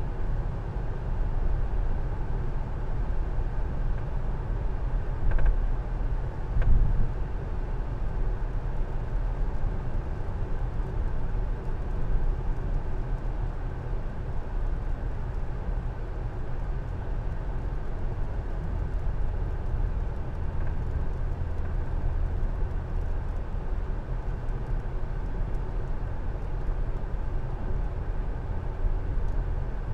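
Steady road noise heard inside a moving car's cabin as it drives on a wet road: a continuous low rumble, with a couple of brief louder knocks about five and seven seconds in.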